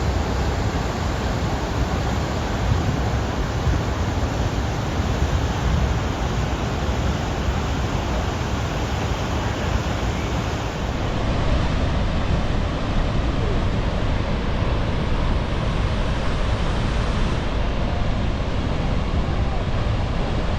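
Steady, loud rushing roar of high floodwater, heaviest in the low rumble and unbroken throughout.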